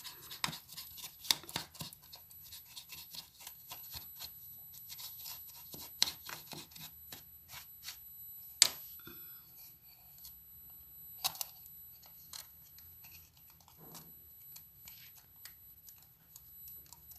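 Light scratching and rubbing with many small irregular clicks and taps, and a few sharper clicks, as a newly fitted wall socket is cleaned by hand.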